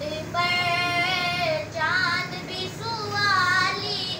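A boy singing solo without instruments, in three long high phrases with wavering pitch and short breaths between them.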